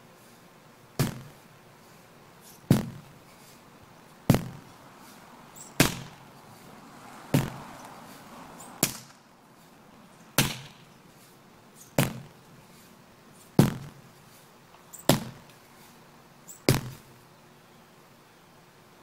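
Sledgehammer swung overhead and driven down onto a rubber truck tire, eleven heavy thuds about every one and a half seconds, each dying away quickly.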